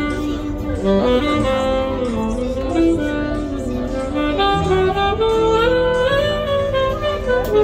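Music with a saxophone playing a melody of held notes that step up and down.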